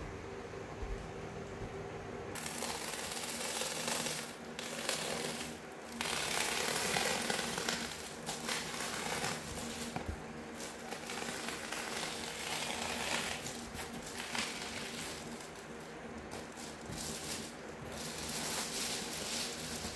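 Reflectix foil-faced bubble insulation crinkling and rustling as it is handled, in uneven bursts starting about two seconds in.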